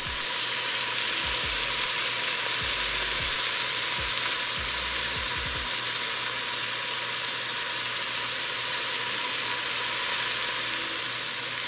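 Sausage, red onion and garlic sizzling as they brown in a Dutch oven: a steady frying hiss.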